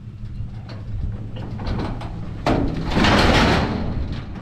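An old heavy truck rolling backward along a steel trailer deck, with a running engine humming low underneath. About two and a half seconds in comes a loud rumbling clatter that lasts about a second and a half as the truck's wheels run over the deck.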